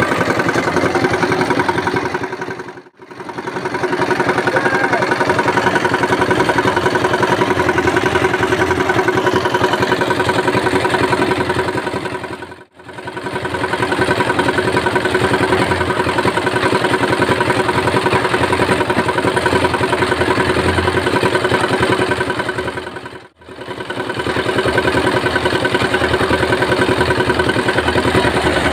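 Portable concrete mixer with its small stationary engine running at a steady speed while the drum turns wet concrete. The sound briefly dips away and comes back three times.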